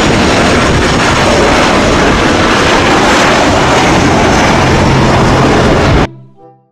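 Loud, steady aircraft engine noise, a dense rushing sound with no clear pitch, played as an airplane sound effect; it cuts off suddenly near the end.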